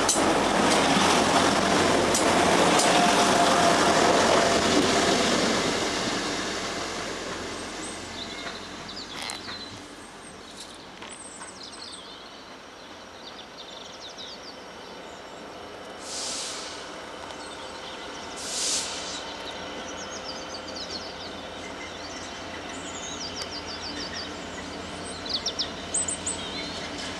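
A passenger train rushes past at close range, a loud rush of wheel and rail noise that fades away after about six seconds. Faint high chirps and the distant rumble of an approaching diesel-hauled freight train follow, growing slightly louder near the end.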